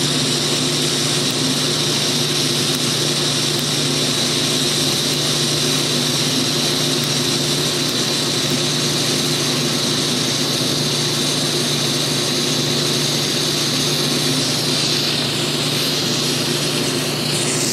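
TIG welding arc burning steadily: a continuous buzzing hiss over a low steady hum, with a slight change in the sound near the end.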